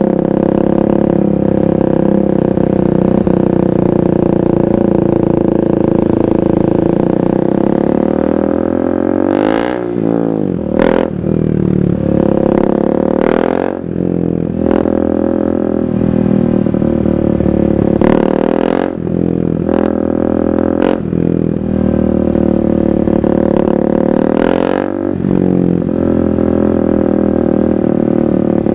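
KTM 390 Duke's single-cylinder engine running through a KO Lightning aftermarket exhaust while being ridden. It holds a steady note for the first eight seconds or so, then the revs drop and the note rises and falls several times with the throttle, broken by a few brief sharp sounds.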